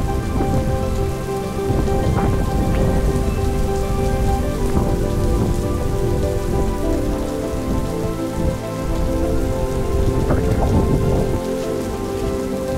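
Steady rain falling on open ground, with gusty wind buffeting the microphone as a heavy, uneven low rumble.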